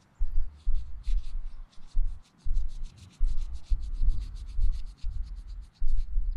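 Fingers rubbing dirt off a freshly dug coin, an Indian head penny, to read its date: quick scratchy rubbing strokes, about five or six a second. Irregular heavy low bumps of handling noise run with the strokes.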